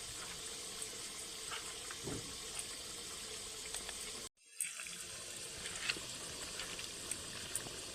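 Potatoes frying in oil in a kadai: a steady sizzle with a few faint ticks. The sound cuts out for a moment about four seconds in.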